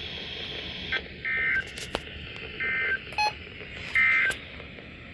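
Emergency Alert System end-of-message data code on a NOAA Weather Radio broadcast: three short buzzy digital bursts about a second apart over faint radio hiss, marking the end of the weekly test.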